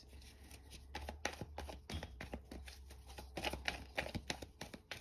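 A deck of tarot cards being shuffled by hand: an irregular run of quick, soft card clicks and slaps.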